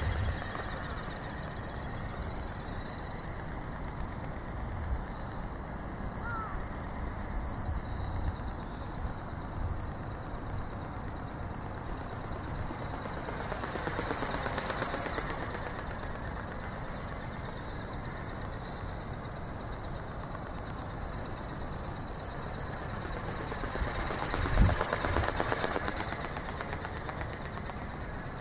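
Electric ornithopter's brushless motor and gear drive whining in flight, a high steady whine that swells and bends in pitch as the model passes close by, about halfway through and again near the end. Wind rumbles on the microphone, with one sharp thump near the end.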